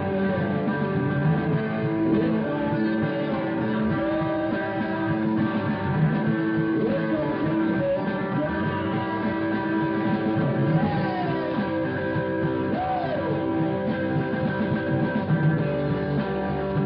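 Four-piece rock band playing a blues-rock song: guitar over bass and drums, steady and continuous.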